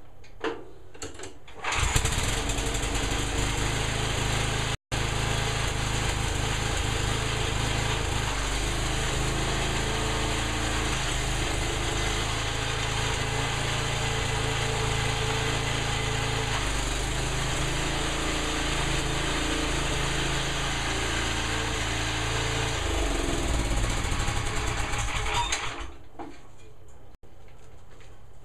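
Sears Custom 7 garden tractor's small gasoline engine starts about two seconds in, runs steadily for over twenty seconds, then shuts off near the end. It is being run for a clutch-dump hole-shot launch in third gear.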